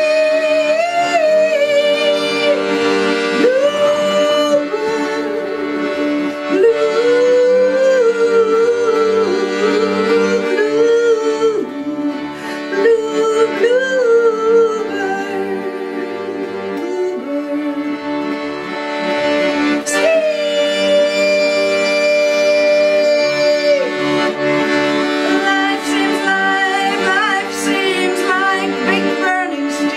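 Instrumental break of a slow song: a wavering melody played over long held chords, without singing.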